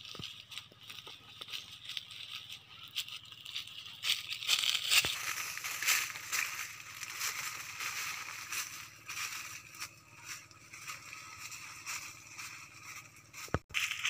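Footsteps crunching on dry leaf litter and twigs, with leafy branches rustling as someone walks through undergrowth; irregular crackling, loudest from about four to eight seconds in.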